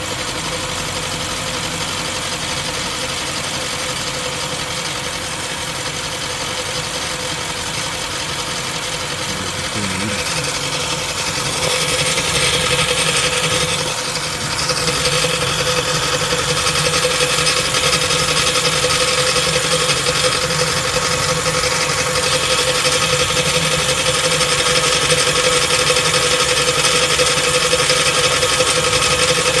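Car engine running with a knock from the torque converter of a ZF 8-speed automatic transmission, the sign of a worn torque converter. It steps up in level about twelve seconds in and again about fifteen seconds in, over a steady whine.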